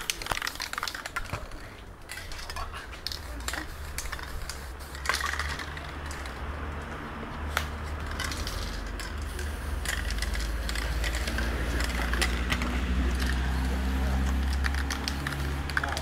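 Aerosol spray-paint can hissing in short bursts, among many small clicks and knocks of cans and tools handled on a wooden table. Voices murmur in the background, and a low hum grows louder in the second half.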